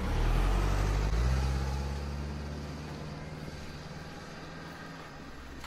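A low, steady droning hum that shifts slightly about a second in and then slowly fades away.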